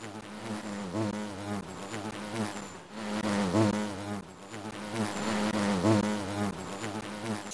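Buzzing bee sound effect: a continuous droning buzz whose pitch swoops up and down about once a second, as if a bee were circling.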